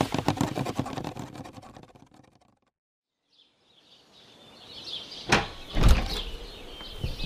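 A fast run of clicks that slows and fades out over about two and a half seconds, then a moment of silence. Birds then chirp over a faint background, with two heavy thumps close together about two-thirds of the way in.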